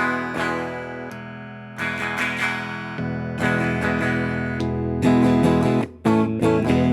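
Squier Cyclone electric guitar, its pickups wired through a Super Series switch and phase controls, playing about five strummed chords that are each left to ring.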